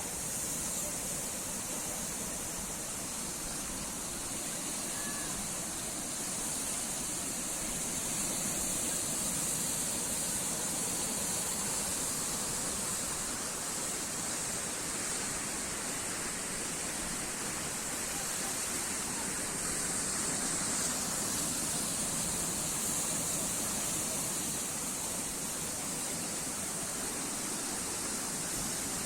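Sea waves washing ashore: a continuous hiss of surf that swells gently a few times.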